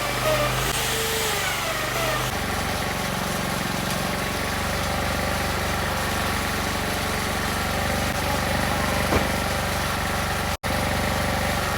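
Power tool motor running steadily under load, briefly cutting out near the end.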